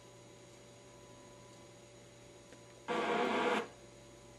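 Television broadcast audio between lines of commentary: a steady low hum and hiss, broken about three seconds in by a short burst of broadcast sound under a second long.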